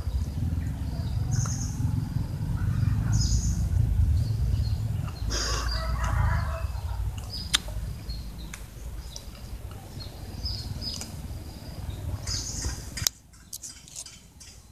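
Cats chewing dry cat food, with sharp irregular crunches and clicks of kibble, over a low rumble that cuts off suddenly near the end.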